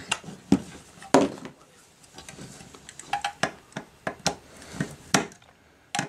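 Irregular small clicks and knocks from a screwdriver and wires being worked into the screw terminal block of a sensor's circuit board.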